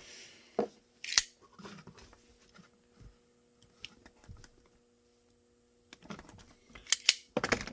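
Scattered clicks and light knocks of small hard objects being handled, with a sharp click about a second in and a cluster of clicks near the end, over a faint steady hum.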